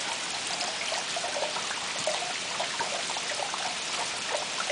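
Steady rain falling, with scattered small drips.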